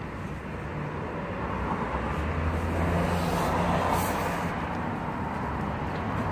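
Low engine rumble of a motor vehicle, swelling about halfway through and easing off again.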